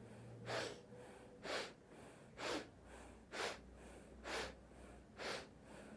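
A person's short, sharp inhales, about one a second and six in all, in the even rhythm of a breathing exercise.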